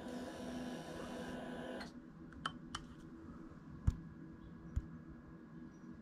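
Honda NC750X motorcycle's electrics on a flat battery: a steady whirr for about two seconds that cuts off, then four sharp, scattered clicks as the start is tried again without the engine turning over.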